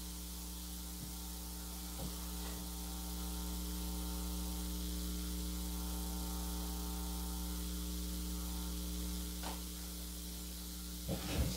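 Steady electrical mains hum with a hiss over it, made of several even tones that stay level throughout, with only a faint tick or two.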